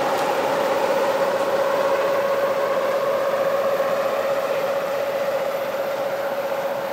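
NZLAV eight-wheeled armoured vehicle driving slowly, its diesel engine and drivetrain running with a steady, mid-pitched whine over the engine noise.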